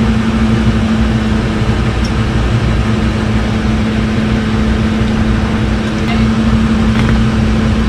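A machine running steadily: an even hum holding one constant low tone.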